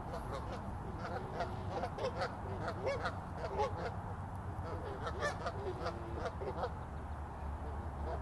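Several Canada geese honking loudly in a squabble, with many short calls overlapping one another without a break.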